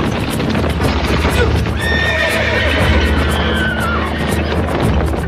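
Horses galloping hard, pulling a stagecoach, with a constant rumble of hoofbeats. About two seconds in, a horse whinnies for roughly two seconds, its pitch dropping at the end.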